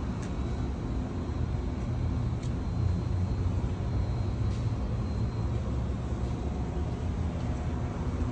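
Steady low outdoor rumble, with a couple of faint clicks about a quarter second and two and a half seconds in.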